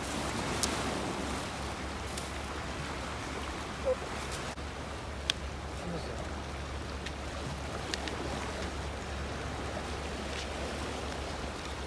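Steady seaside ambience of surf and wind, with a few short sharp clicks or taps scattered through it.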